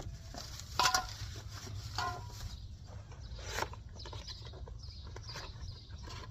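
A few sharp metallic clinks with a brief ring, the loudest about a second in and another a second later, over a steady low hum: tools or brake parts being handled.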